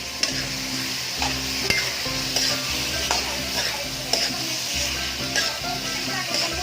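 Pork belly pieces sizzling in hot oil with sautéed garlic, onion and tomato, as they start to render their fat. A utensil clicks against the pan every half second or so while it is stirred.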